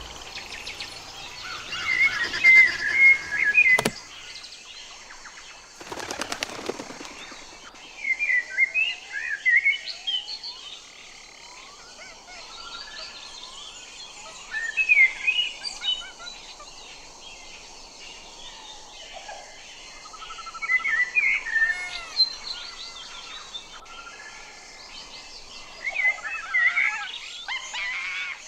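Common (Eurasian) blackbird singing: about five separate warbling phrases a few seconds apart, with quieter background between them. A sharp click follows the first phrase, and a short rustle comes soon after.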